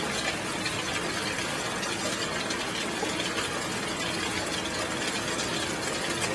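Heavy rain falling steadily, an even hiss with no single drops or thunderclaps standing out.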